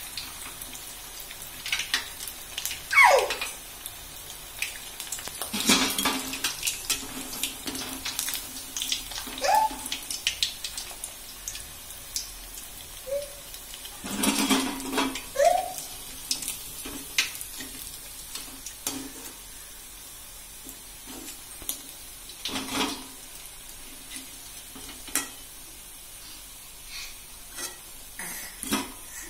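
Batter-coated pork pieces deep-frying in hot oil with a steady sizzle. A steel slotted spoon now and then clanks and scrapes against the metal kadai as fried pieces are lifted out and fresh ones dropped in.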